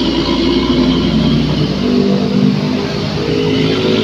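A vehicle engine running steadily, then revving with its pitch rising about two seconds in.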